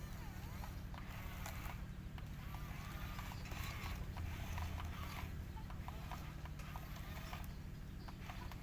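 Heavy diesel engine running steadily, with a low rhythmic throb that swells slightly about four seconds in.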